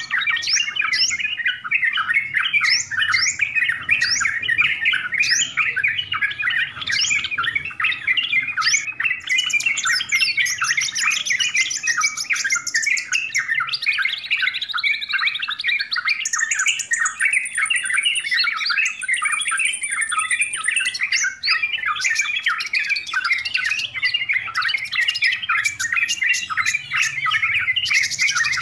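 Yellow-vented bulbuls chattering busily and without pause, the bubbly calls of more than one bird overlapping. A run of fast, high trills comes in the middle, followed by two thin, held high whistles.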